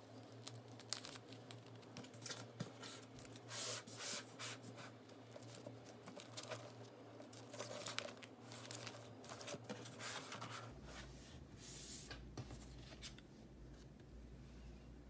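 Clear plastic binder pocket sleeves and photocards rustling and crinkling with short clicks as a card is slid into a sleeve and pages are turned. The handling is densest in the first ten seconds and fainter afterwards.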